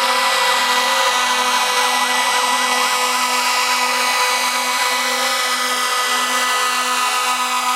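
Fire truck sirens sounding together, loud and steady: a fast yelp rising and falling several times a second over steady held tones.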